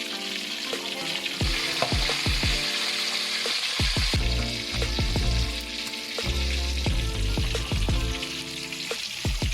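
Food sizzling steadily in hot oil in a pan, over background music with held chords and a bass beat.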